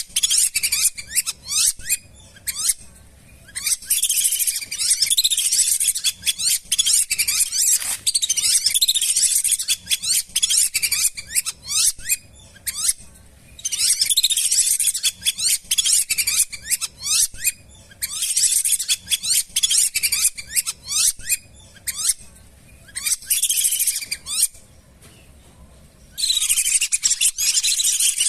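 Lesser whistling ducks calling as a flock: many quick, high-pitched whistled notes, each rising in pitch, overlapping in bouts of several seconds with short pauses between.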